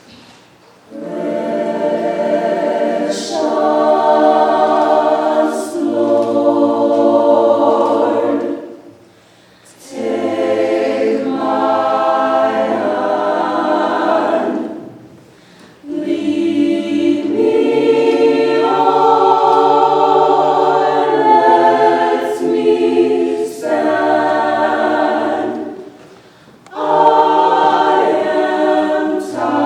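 A choir singing a cappella in long phrases, with brief pauses between them about nine, fifteen and twenty-six seconds in.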